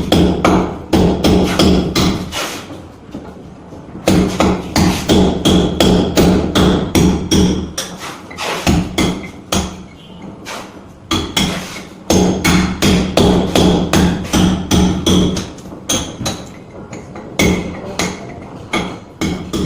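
Hammering: quick repeated blows in runs of a few seconds, broken by short pauses, over a steady low hum.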